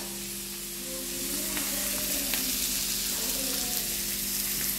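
Sliced onions, green chillies, garlic and ginger sizzling in oil in a nonstick frying pan, a steady sauté sizzle. A steady low hum runs underneath, with a couple of faint ticks.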